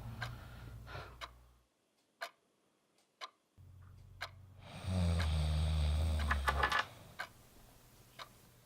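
A clock ticking about once a second. A low drone stops about two seconds in, leaving only the ticks, then comes back. A loud, rasping snore lasting about two seconds sets in about five seconds in.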